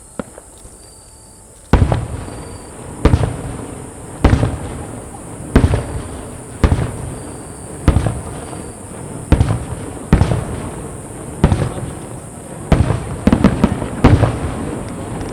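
Aerial fireworks shells bursting, a sharp boom about every second and a quarter, each trailing off in a rumbling echo. It starts after a quiet second or so and ends in a quick cluster of bangs near the end.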